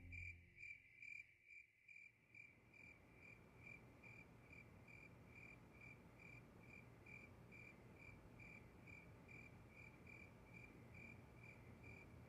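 Faint cricket chirping, a steady run of about three short chirps a second.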